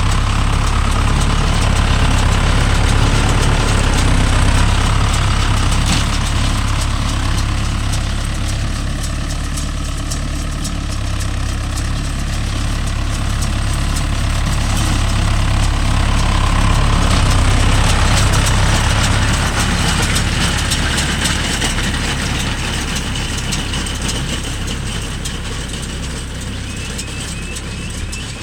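Mahindra Yuvo Tech Plus 585 tractor's diesel engine running steadily while it drives a baler. It swells and eases a little and gets somewhat quieter near the end.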